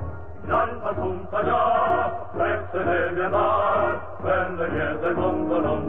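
Music: a song with voices singing, Italian to judge by the lyrics that follow.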